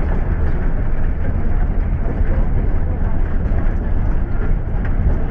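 Minibus on the move: a steady low rumble of engine and road noise, with no brake squeal.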